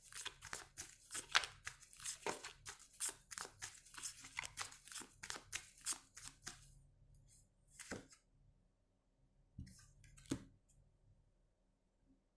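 A deck of tarot cards being shuffled by hand: quick papery riffling and flicking for about six seconds, then a few single card taps or slaps as cards are drawn or laid down.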